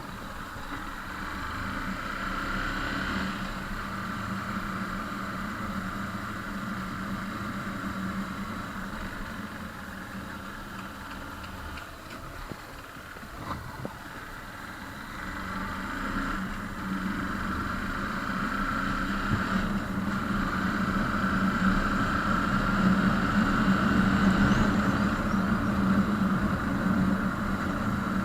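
Motor vehicle engine running steadily, growing louder in the second half.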